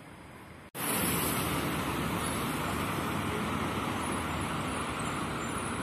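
Steady city street traffic noise from passing cars, starting abruptly about a second in after a brief quiet hush.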